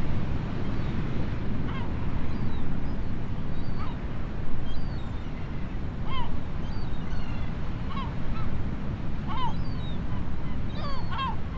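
Gulls giving short yelping calls every second or two, more often near the end, over a steady rush of wind and surf.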